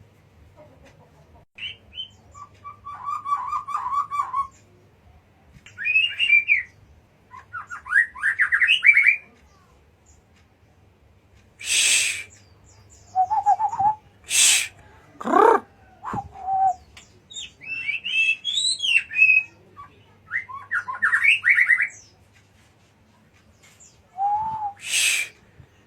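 White-rumped shama (murai batu) singing: separate phrases of whistled notes, fast trills and sweeping calls, mixed with a few harsh rasping notes, with short pauses between phrases.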